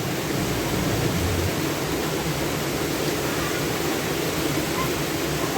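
Steady, even rush of water, with no breaks or distinct strikes.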